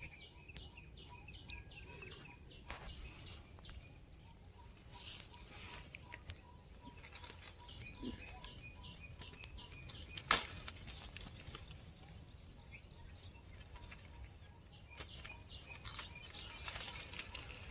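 Faint outdoor ambience: leaves rustling as hands move through a citrus tree, over a steady run of small high chirps, about four a second. One sharp click about ten seconds in is the loudest sound.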